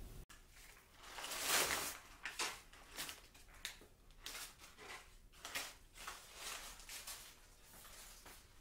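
A brown paper bag crinkling and pruned lavender sprigs rustling as they are pushed into it by hand: a louder crinkle about a second and a half in, then a string of short rustles.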